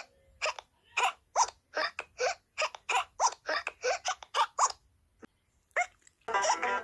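A cartoon character's hiccups: a rapid run of short, squeaky hics, each rising in pitch, coming faster and faster. They stop briefly, then there is one last hic near the end.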